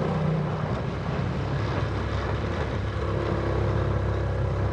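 Honda automatic scooter's engine running steadily under load as it pulls up a steep concrete hill lane, with a rushing hiss over it.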